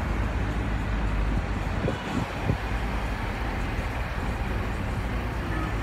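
Road vehicle driving: a steady low engine and road-noise rumble heard from inside the vehicle, with a few light knocks about two seconds in.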